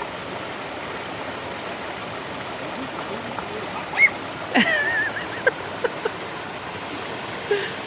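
Creek water rushing steadily. A few short high-pitched sounds come about four to six seconds in.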